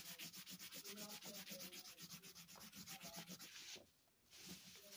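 Pencil or crayon scratching on paper in rapid, even back-and-forth coloring strokes, faint and close to the microphone, pausing briefly near the four-second mark.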